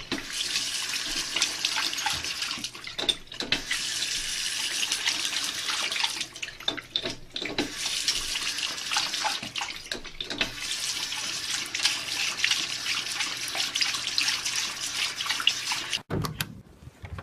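Water running steadily, like a tap into a sink, with a few brief breaks in the flow; it stops abruptly near the end.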